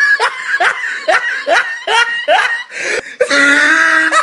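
A high-pitched voice laughing in a run of short rising notes, about two a second, then breaking into one long drawn-out note near the end.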